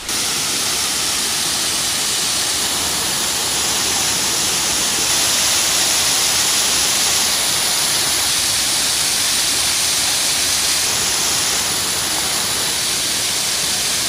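Cambugahay Falls' cascades pouring, a loud, steady, even hiss of falling water.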